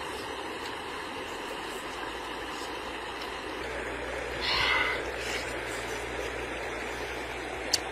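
Steady rushing of a shallow river flowing over rocks, with one brief higher sound about halfway through.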